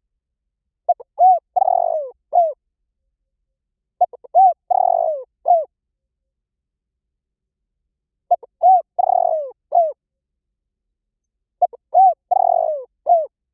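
Spotted dove cooing, four phrases in a steady repeating pattern about every four seconds. Each phrase is a couple of short coos, a longer falling coo, then a last short coo.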